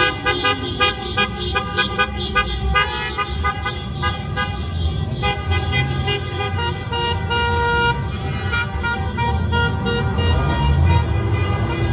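Car horns of a slowly passing line of sedans, several held tones sounding together over the low run of engines, with a quick regular pulsing through them.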